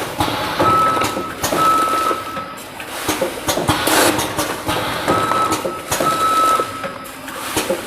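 Vertical form-fill-seal packing machine with a measuring-cup filler running: mechanical clatter and knocks repeating in a cycle of about four and a half seconds, with a high steady tone sounding in two short stretches in each cycle.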